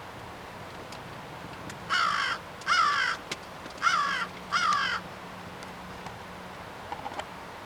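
Crow calling: four harsh caws of about half a second each, given as two pairs a little over a second apart.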